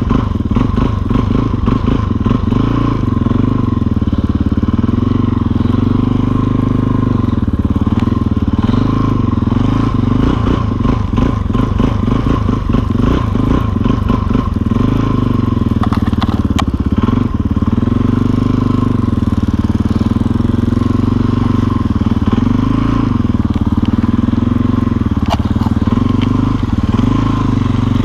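Motorcycle engine running under way through deep snow, its pitch rising and falling every couple of seconds. There is a stretch of rough knocking and crunching about a third of the way in.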